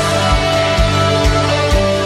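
Instrumental passage of a song with no singing: sustained pitched parts over a steady drum beat.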